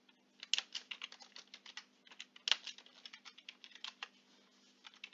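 Typing on a computer keyboard: a quick, irregular run of key clicks that starts about half a second in and thins out near the end.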